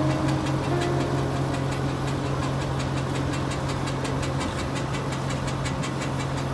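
Tractor engine running steadily under load as it pulls a burdock-digging implement through the soil, with a low hum and an even, rapid clatter.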